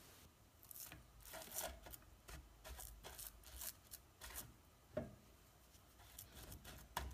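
Faint, scattered rustling and scraping of hands pressing and smoothing coarse semolina dough into a flat harcha round on a semolina-dusted pan, with one light knock about five seconds in.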